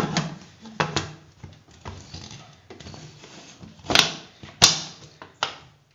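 Metal pressure cooker lid being fitted and closed: a few sharp clicks and knocks with scraping between them.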